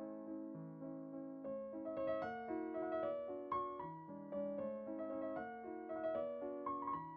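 Background piano music, a melody of single notes over a repeating accompaniment.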